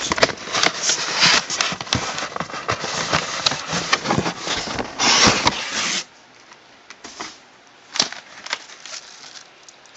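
Cardboard shoebox scraping and rustling against the shipping carton as it is handled and lifted out, with dense crackling of cardboard and paper for about six seconds. Then much quieter, with a couple of sharp knocks.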